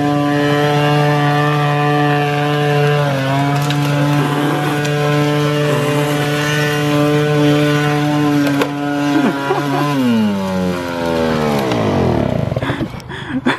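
Small moped scooter engine running hard off-road, held at a steady high-revving note, with a few sharp knocks. Near the end the revs fall away steadily as the scooter goes over onto its side.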